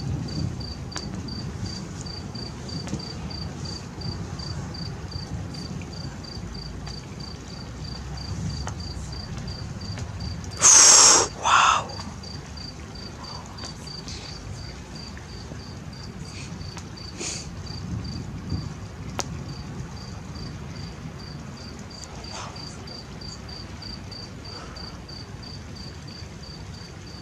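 A cricket chirping steadily, with high, evenly spaced chirps. About eleven seconds in comes a brief, loud hissing noise in two short parts.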